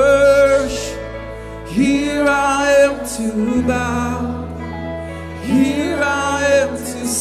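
Christian worship song: a singer holds long notes in three phrases over sustained accompaniment chords whose low note changes about halfway through.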